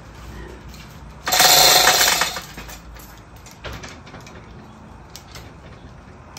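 A burst of rapid metallic clattering, about a second long, starting a little over a second in, as metal engine parts are handled during assembly of the outboard powerhead; a few faint clicks follow.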